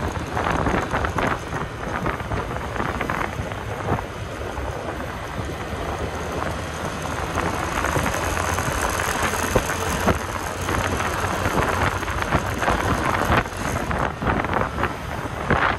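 Wind buffeting the microphone over the steady running of a Honda scooter's engine and its tyres on the road while riding at town speed, in irregular gusts.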